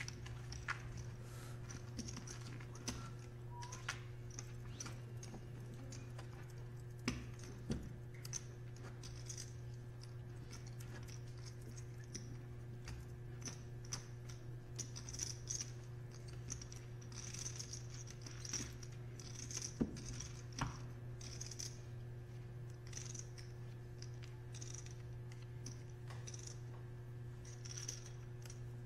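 Poker chips clicking and rattling faintly as players handle and riffle their stacks at the table, in short bursts every few seconds, over a steady low hum.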